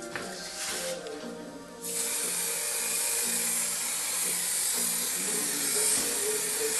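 Aerosol can of fixative spraying onto a dry pastel painting: a steady hiss that starts about two seconds in and keeps going, over background music.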